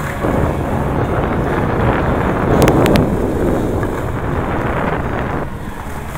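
Wind buffeting the built-in microphone of a sunglass camera worn while moving down an indoor ski slope, a steady rushing noise that eases a little about five and a half seconds in.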